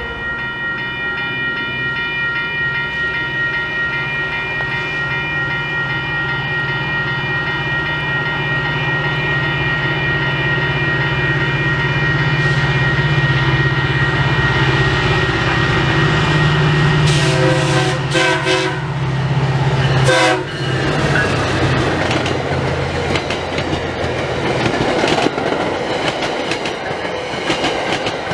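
Diesel MBTA commuter train approaching and passing: a low engine drone grows louder under a steady high ringing, the horn sounds about 17 seconds in, then the coaches rush past with wheels clacking over the rail joints.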